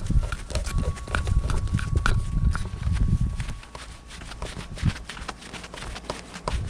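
Irregular clicks and knocks of hands and tools handling wires and parts inside a heat pump's electrical panel, with a low rumble over the first few seconds.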